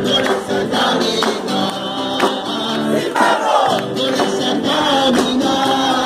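A crowd singing together in unison, with hand clapping keeping time.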